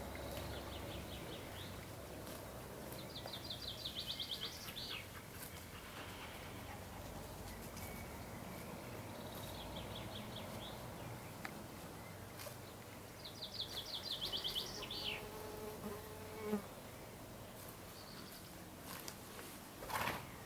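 High, rapid trills, heard four times, each lasting a second or so, two of them ending in a short falling note. A brief loud rushing noise comes near the end.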